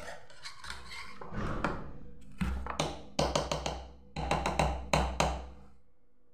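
Metal spoon tapping and scraping against a whisk and the rim of an aluminium saucepan as margarine is knocked off into thick coconut custard. The taps come in quick clusters, the last run about four seconds in, then stop.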